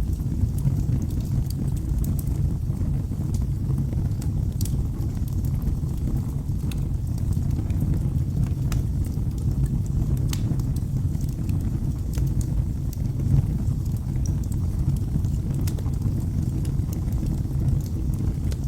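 Wood fire burning in a fireplace: a steady low rumble of the flames with scattered, irregular sharp crackles and pops of the burning wood.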